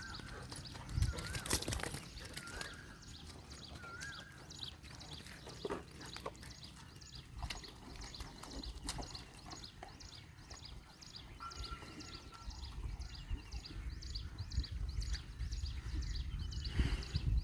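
Outdoor field ambience: a bird gives a short whistled call about three times in the first few seconds, then birds chirp steadily in quick, high repeated notes, with a few scattered knocks and low wind rumble building near the end.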